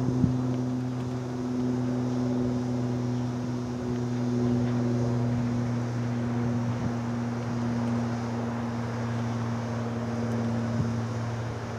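A steady mechanical hum made of two unchanging tones, a low one and one an octave above, with light wind noise on the microphone.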